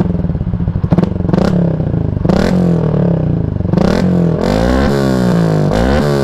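Yamaha Sniper 150's single-cylinder four-stroke engine revved in a series of quick throttle blips through a short Gori Pipe aftermarket muffler with its silencer fitted, the pitch jumping up and falling back between blips. The sound is noisy.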